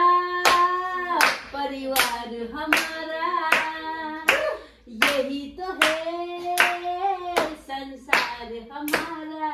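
A small group clapping along in a steady beat, about four claps every three seconds, with voices singing long held notes; the singing breaks off briefly near the middle.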